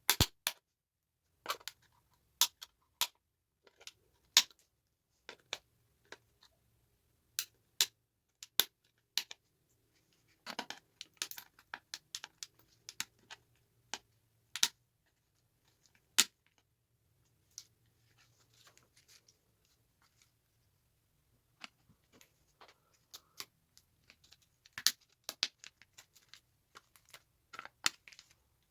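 Micro tactile switches being taken apart by hand: irregular sharp clicks and snaps, some in quick clusters, with short stretches of scraping and rustling.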